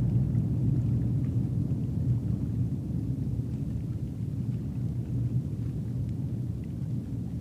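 A low, steady rumble with nothing distinct on top of it and no speech.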